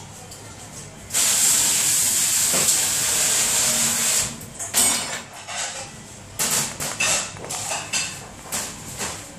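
Commercial pre-rinse spray valve spraying water onto plates in a dish rack: a loud, steady hiss that starts about a second in and stops after about three seconds. Then several short clatters and knocks.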